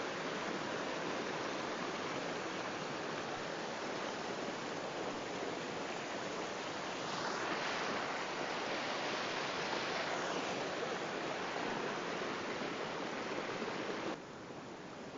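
Steady rush of a waterfall's falling water, swelling a little midway, then dropping suddenly to a quieter hush near the end.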